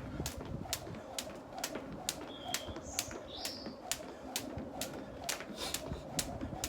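Jump rope striking the ground in a steady rhythm, about two sharp slaps a second. A bird chirps briefly a few times in the middle.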